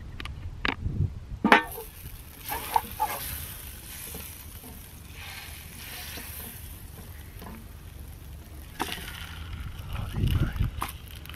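Butter sizzling in a hot stainless steel pan over coals: a few knocks as the butter goes into the pan, a sharp hit about a second and a half in, then a steady sizzle. Near the end come low bumps and handling noise as fish fillets are laid into the pan.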